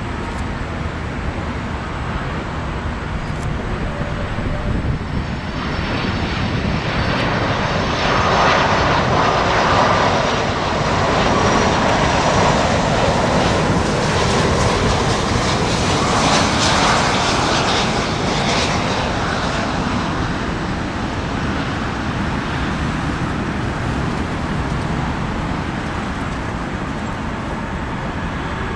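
Airbus A330-200's twin Rolls-Royce Trent 772 turbofans on final approach at low power, the jet noise building as the airliner passes close by, loudest for about ten seconds in the middle, then easing as it flies on toward the runway. A high fan whine sits over the rumble as the noise rises.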